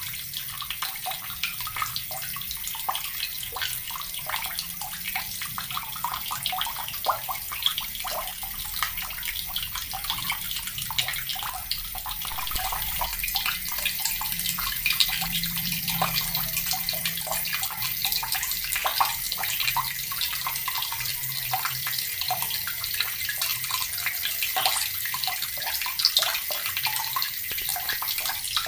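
Water from a tap pouring steadily into a bucket: a continuous splashing and bubbling with no break.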